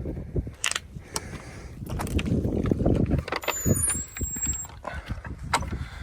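Footsteps of a hiker walking on a path, with wind rumbling on the microphone and a brief thin high squeak partway through.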